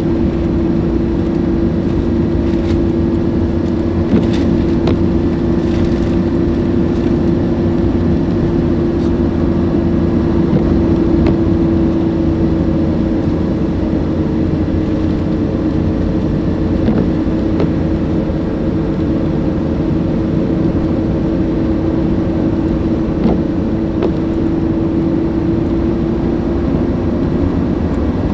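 A steady motor hum held at one pitch over a low rumble, with a few faint clicks.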